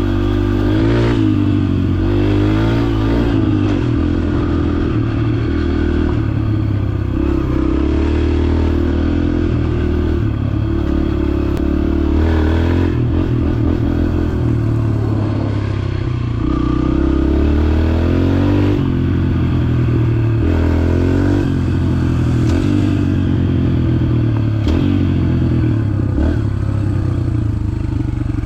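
Yamaha TT-R125 trail bike's single-cylinder four-stroke engine running under way, its revs rising and falling over and over with the throttle. Scattered sharp knocks and clatter come through now and then.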